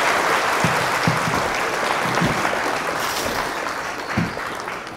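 Applause from a crowd, a dense, steady clapping that gradually fades toward the end.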